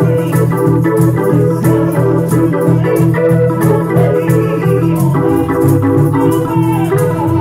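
Organ playing sustained, changing chords in an instrumental passage of a gospel song, over a steady percussive beat.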